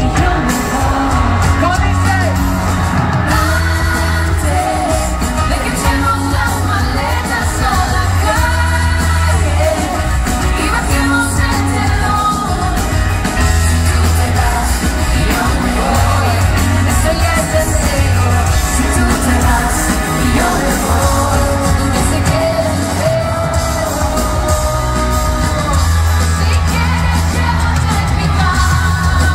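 Live pop band playing on stage: a lead vocal sings over electric guitar, drums and a strong steady bass, heard from the audience in a large concert hall.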